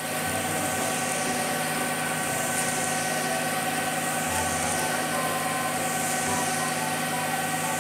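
Concrete mixer truck's diesel engine running steadily while it pours concrete down its chute, a constant hum with a hiss over it.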